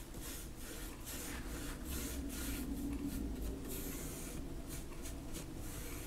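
Flat paintbrush scrubbing oil paint across a stretched canvas in repeated back-and-forth horizontal strokes: a faint, scratchy rasp.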